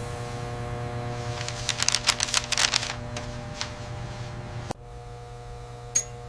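A steady electrical-sounding hum with a quick run of sharp clicks or taps about two seconds in. The hum drops abruptly near the end, and one more click follows.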